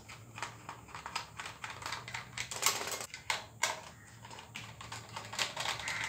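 Small screwdriver backing out screws from the plastic chassis of an RC toy car, with irregular clicks and plastic rattles as the car is turned in the hands.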